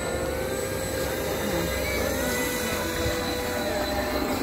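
Whine of a 1/10 scale RC pontoon boat's scale outboard motor as the boat runs across the water, its pitch rising about two seconds in and dropping near the end.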